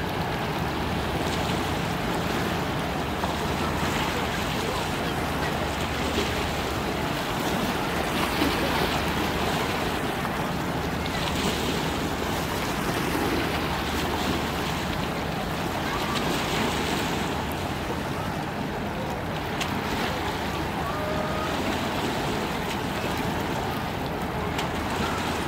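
Waterside ambience: wind buffeting the microphone and water washing against the shore, under a low, steady drone of passing ship and boat engines.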